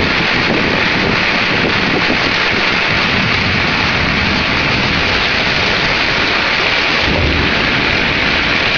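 Heavy thunderstorm rain pouring down steadily, with a low rumble underneath that swells about seven seconds in.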